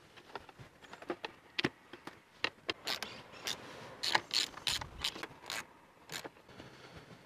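A hand ratchet clicking in short runs, with scattered plastic clicks and knocks, as the fasteners of the plastic engine cover are tightened down. The clicks come thickest in the middle of the stretch.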